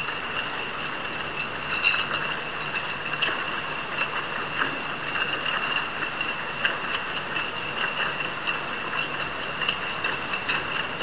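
Bottling machine running on a factory line: a steady mechanical whir with a high, even whine, dotted with irregular clicks and clinks.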